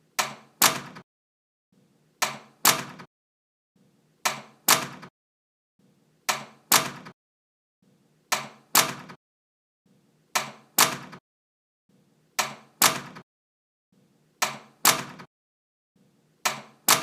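A door closing, repeated about every two seconds: each time a faint rub, a short knock, then a louder sharp shut about half a second later.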